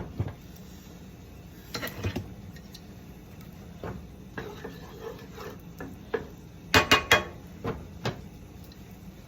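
Kitchen utensils knocking and clinking against a pot on the stove, in scattered short strikes with a louder cluster near the end.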